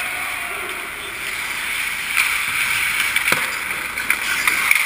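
Ice hockey skate blades scraping and carving on rink ice, a hiss that swells and fades, with a few sharp clicks and knocks from about two seconds in.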